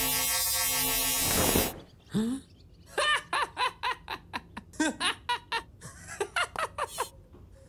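Cartoon laser-beam effect, a steady electric buzz that cuts off after about a second and a half. It is followed by a boy laughing in short repeated bursts.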